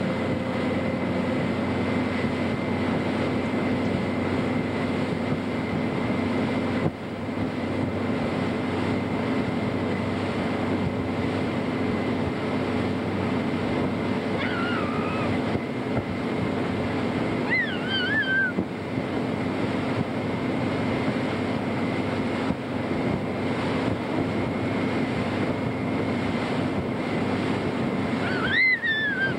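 Motorboat engine running steadily while towing, with wind on the microphone and the rush of the wake. Three brief high-pitched cries come through, two about halfway and one near the end.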